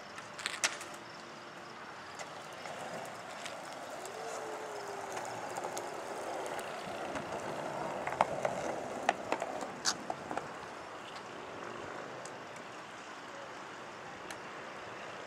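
Skateboard wheels rolling on a concrete sidewalk: a rumble that swells and fades, with sharp clacks of the board, a couple near the start and a cluster a little past the middle.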